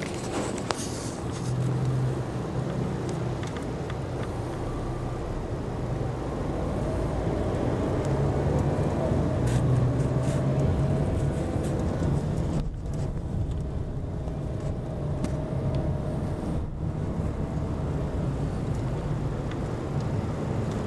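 Car engine and road noise heard from inside the cabin while driving in slow city traffic, a steady low hum that swells a little as the car picks up speed partway through.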